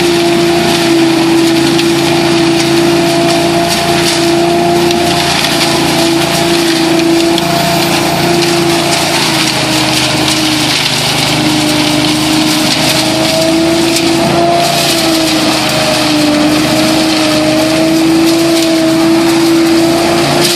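Billy Goat DL1801VE debris loader running steadily, its 18 hp engine and impeller fan giving a strong whine that wavers slightly in pitch. Over it is a loud rush of air and leaves being sucked up the intake hose.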